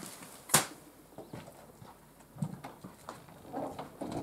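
A sharp click about half a second in, then a few lighter knocks and a dull thud: hard objects being handled while a heater is mounted and the electrics are set up.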